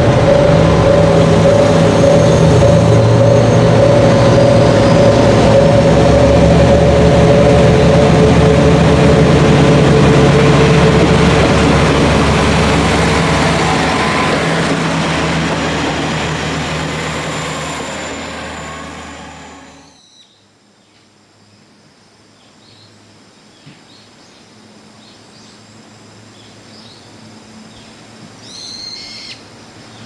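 KiHa 40-series diesel railcar's engine pulling away past the camera, a loud steady drone with held tones that fades out as the train moves off. After a sudden drop about two-thirds of the way in, a quiet outdoor background with a few short high chirps near the end.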